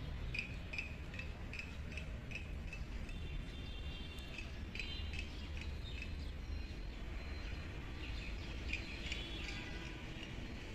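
A bird calling: a short high chirp repeated about two or three times a second for the first few seconds and again near the end, with more varied chirping in between, over a steady low background rumble.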